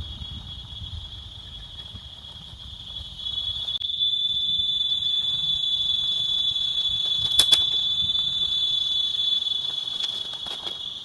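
Forest insects giving one steady, high-pitched drone that swells louder three to four seconds in, with a sharp click or two about halfway through.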